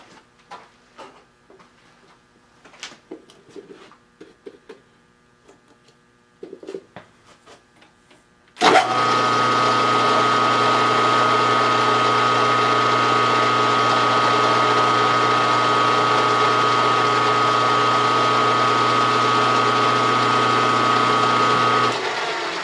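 A few light clicks of handling, then about eight seconds in a drill press motor starts abruptly and runs at a steady, high hum, turning a 1/4-inch reamer in a hole in metal plate; it stops near the end.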